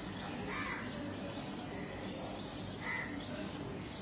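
Crows cawing, two harsh calls about half a second in and just before three seconds, over a steady background noise.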